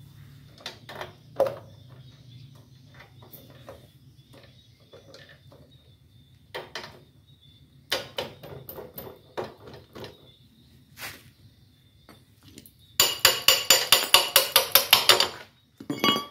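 Metal clicks and knocks of a motorcycle's rear wheel, axle and chain adjuster being fitted back by hand, then, near the end, a fast run of about a dozen sharp metal knocks lasting a couple of seconds.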